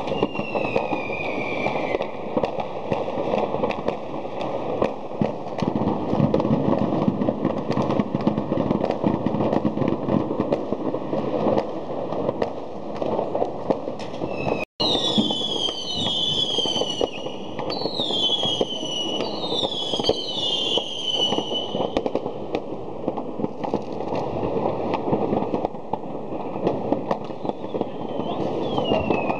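A city-wide barrage of fireworks: a dense, continuous crackle of firecrackers and distant bangs. About halfway through, several whistling fireworks shriek in quick succession, each whistle falling in pitch, and the sound cuts out for an instant just before them.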